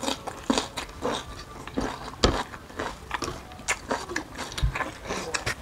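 Close-up mouth sounds of biting and chewing a crisp green vegetable stalk: irregular crunches, a few each second.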